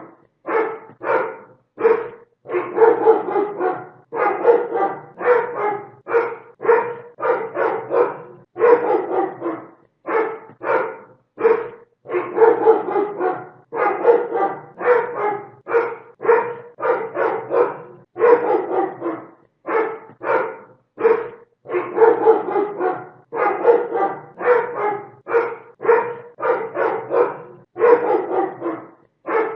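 Dog barking loudly over and over, in runs of quick barks broken by short pauses.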